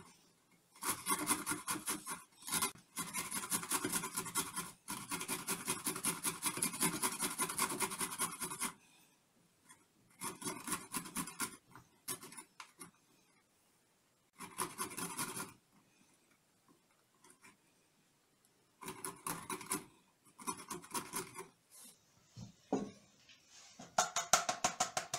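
Celeriac being grated on a metal hand grater: quick rasping strokes in spells of a few seconds, broken by short pauses.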